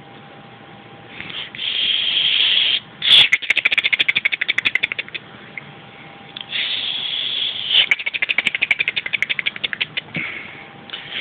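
A small child coughing in fits: each fit is a drawn-out hissing breath followed by a fast rattling string of short coughs, repeated about three times.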